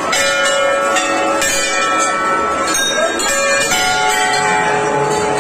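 Large hanging temple bells rung over and over by many hands, struck about twice a second, so that their ringing tones overlap into a continuous clangour over the hubbub of a crowd.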